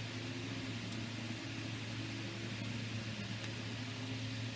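Steady low hum with a hiss under it, like a room fan or appliance running, with a few faint light ticks as small phone parts are handled, about a second in and again near the end.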